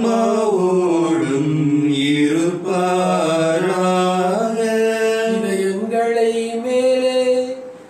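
A priest chanting a sung prayer of the Mass into a microphone: one man's voice holding long notes in phrases, with short breaths between them.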